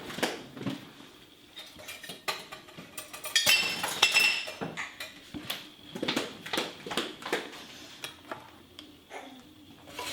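Spoon clinking and scraping irregularly while scooping slushy blended watermelon ice out to remove some, with a brighter spell of scraping a few seconds in.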